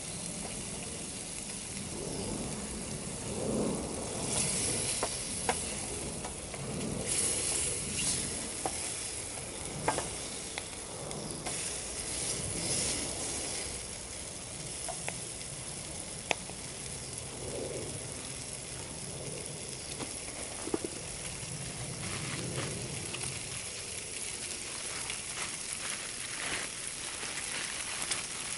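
Bacon and egg sizzling steadily in a frying pan over a small camp stove, with a few sharp clicks of the wooden spatula against the pan as the food is turned. A paper bag rustles near the end.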